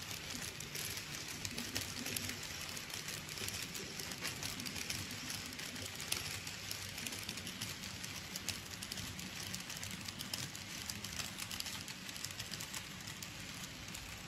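A model freight train of tank wagons running along the track, with a steady, fine rattling clatter of many small wheels on rail over a low hum.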